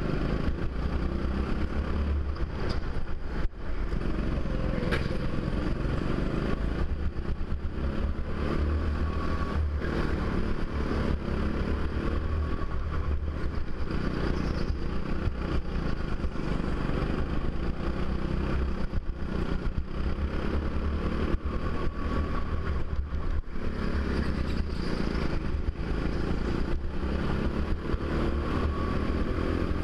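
Go-kart engine running hard around the track, heard on board, its note swelling and easing every few seconds with the throttle through the corners.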